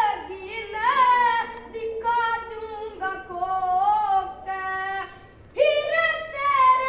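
A boy singing a ragni, the Haryanvi folk song form, unaccompanied: one high child's voice holding long, wavering notes, with a short break for breath about five seconds in before he goes on.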